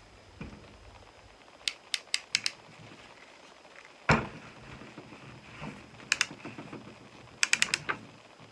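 SharkBite PEX clamp tool squeezed onto a clamp ring on PEX pipe: sharp metallic clicks from the tool's handles and jaws in quick clusters of several clicks, with a single heavier knock about four seconds in, as the ring is clamped down to make the connection.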